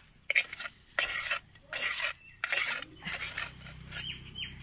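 Steel ladle scraping and stirring against the inside of a clay pot of cabbage gravy, in about four short strokes roughly a second apart, fading in the last second or so. Faint bird chirps near the end.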